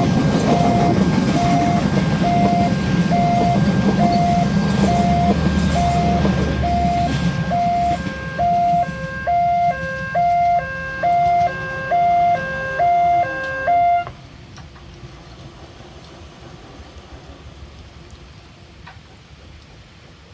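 Railway level-crossing warning siren sounding an electronic tone that alternates between two pitches at an even pace. A passing train rumbles under it for the first half, and the siren cuts off suddenly about two-thirds of the way in, leaving a faint steady hiss.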